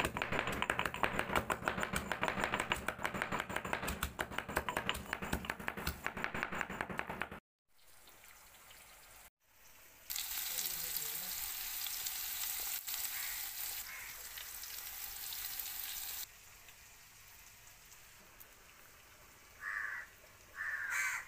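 Hand food preparation: a fast, uneven run of knocking and scraping for about seven seconds. After a cut, a steady high hiss follows for about six seconds, then it is quiet apart from two short blips near the end.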